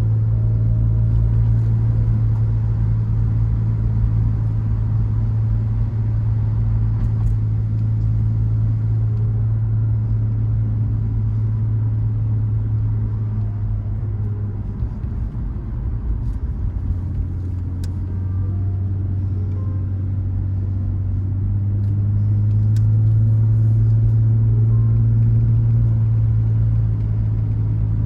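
Motor vehicle engine running steadily as it drives, a low drone that drops away about halfway through and builds back up a little later, with a few faint knocks.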